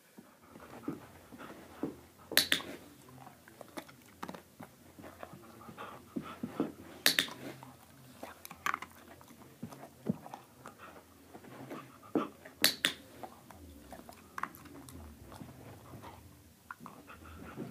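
Box clicker clicking sharply four times, two of the clicks in quick succession, marking the moments the dog holds the object calmly. Between the clicks the dog mouths the object and pants softly.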